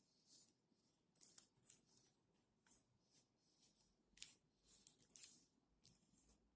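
Faint, irregular crisp clicks and scrapes, about a dozen short ones, like light handling of stiff material at close range.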